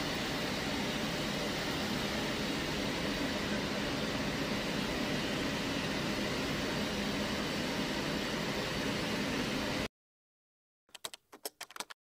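Steady hum and hiss of running machinery in a machine shop, cutting off suddenly about ten seconds in. Shortly after comes a quick run of keyboard typing clicks.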